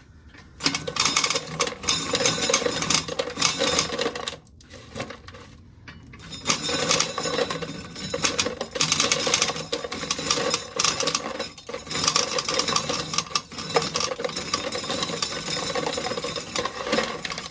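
Corn sheller stripping an ear of corn, a dense rattling clatter of kernels and mechanism in three long spells with short pauses between.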